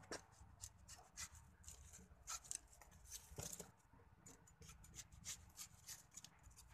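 Faint, scattered rustling with light irregular clicks and scrapes over a quiet outdoor background.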